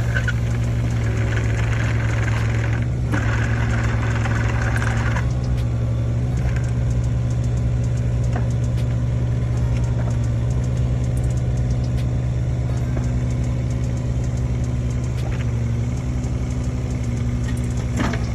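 Kubota KX019 mini excavator's diesel engine running at a steady speed. A higher hiss rides over it for the first five seconds, with a short break about three seconds in.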